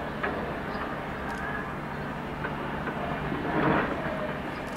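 Outdoor background noise: a steady low hum and hiss, with a faint click just after the start and a brief swell of noise about three and a half seconds in.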